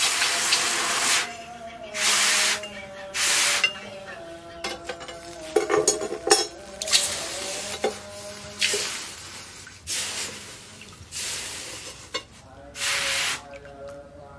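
Hot leaf-spring steel billhook blade being quenched in a trough of water to harden it, hissing and sizzling loudly in about seven bursts as it is dipped and worked in the water, with quieter sloshing and light metal clinks between them.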